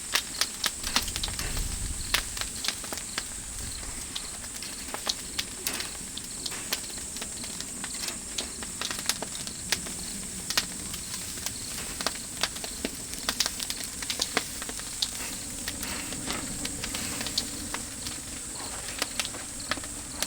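Oak firewood fire crackling: sharp, irregular pops and snaps over a steady hiss. A steady high chirring of insects runs underneath.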